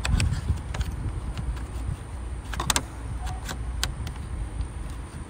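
Scattered small clicks and scrapes of hard plastic and metal as a stiff retaining clip is worked onto a headlight bulb in its housing, over a steady low rumble.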